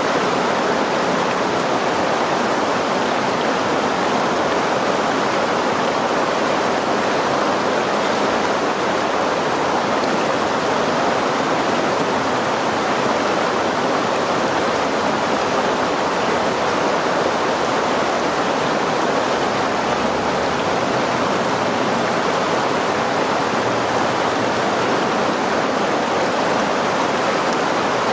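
A river or stream rushing steadily over rocks, a constant, even wash of water.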